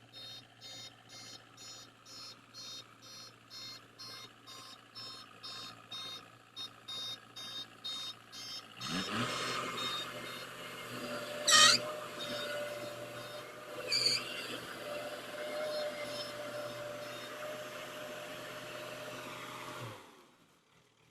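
Electronic warning beeper sounding a little over twice a second, then a machine running steadily with a held hum and two sharp clicks, cutting off about a second before the end.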